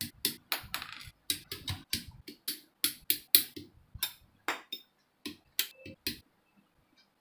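Plastic model-kit runners clicking and clacking as they are handled and knocked together, a quick irregular run of sharp plastic taps that stops about six seconds in.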